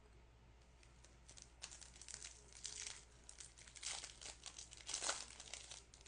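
Crinkling and tearing of a trading-card pack wrapper, a run of irregular rustles and crackles starting about a second in.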